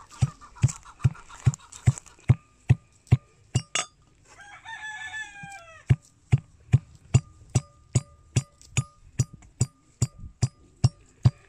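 Brass mortar and pestle pounding dried herbs: evenly spaced ringing strikes, about two and a half a second. About four seconds in the pounding pauses while a rooster crows once, then it resumes.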